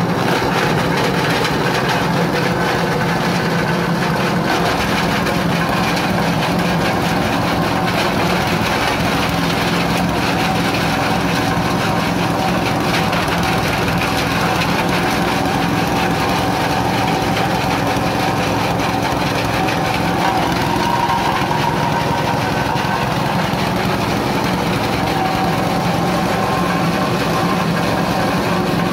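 Small engine driving a coconut-husk grinder, running steadily at speed while coconut husk is fed in and shredded into cocofiber and cocopeat.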